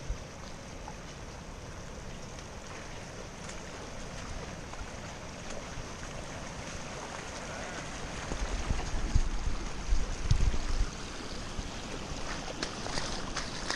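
Boots splashing and wading through water on a flooded walking track, over a steady hiss of rain and running water. A few low thumps on the microphone come about two-thirds of the way through, and sharper splashes near the end.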